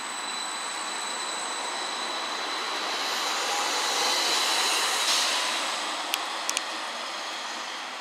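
CAT Urbos 3 tram running past the platform, with a high steady electric whine over its running noise. The sound builds to a peak about four to five seconds in, then eases off. A few short sharp clicks sound near the end.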